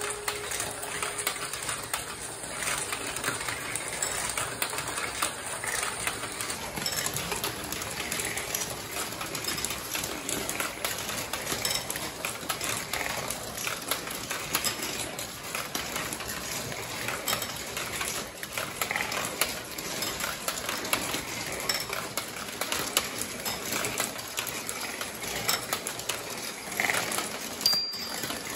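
Steel marbles running through a GraviTrax plastic marble run: a steady stream of clicks, clinks and rattles as the balls roll along the tracks and metal rails and drop through the pieces.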